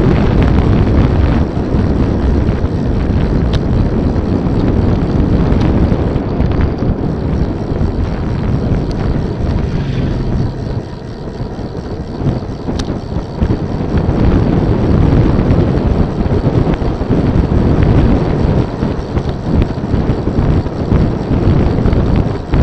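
Wind buffeting the microphone of a camera on a moving bicycle: a loud, steady rush that eases for a few seconds near the middle and then picks up again.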